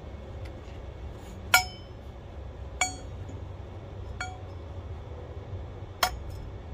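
Metal pipes clinking against slotted steel strut channel as they are moved into place, four sharp clinks with a short metallic ring after each.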